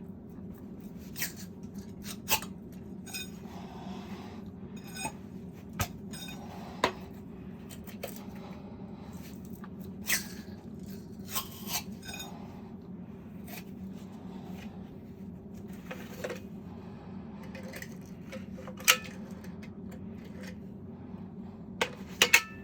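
Scattered clinks, taps and knocks of hard objects being handled, at irregular intervals, over a steady low hum.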